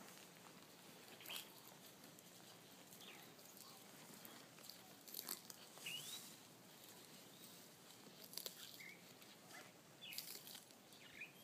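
Galápagos giant tortoise biting and tearing off leaves held out to it: a few faint, scattered crunches. Several short bird chirps sound between them.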